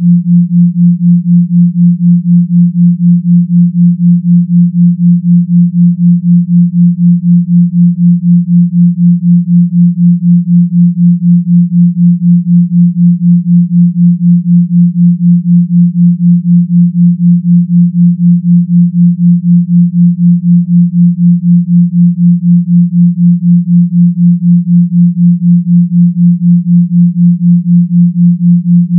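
A low pure sine tone near 174 Hz, a binaural beat of 172 Hz in the left channel and 176 Hz in the right, held unbroken and pulsing evenly about four times a second: the 4 Hz theta beat.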